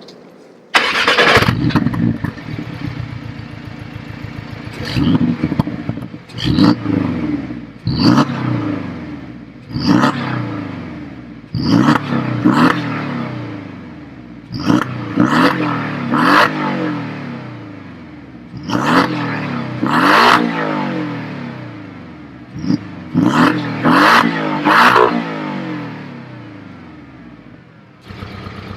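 Porsche 718 Boxster engine and exhaust starting up with a flare about a second in. It is then blipped repeatedly, a dozen or so sharp rev spikes, with the revs sliding back down toward idle after each.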